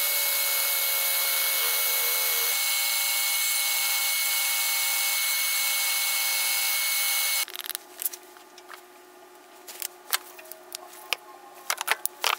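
Scheppach DECO-FLEX scroll saw running steadily while cutting plywood discs, with a constant high whine; its pitch drops a little about two and a half seconds in, and it stops suddenly about seven seconds in. After that, light clicks and knocks of wooden discs and clamps being handled on a bench.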